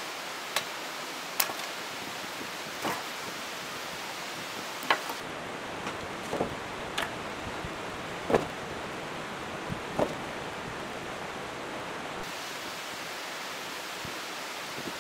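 Steady rushing of stream water, broken by about eight short, sharp wooden knocks and cracks scattered through it as branches are handled and laid by the campfire.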